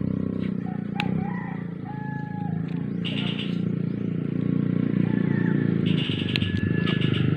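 Electrical tape being pulled off its roll in a few short pulls, about three seconds in and again near the end, over a steady low machine hum, with a few bird chirps and a couple of light clicks.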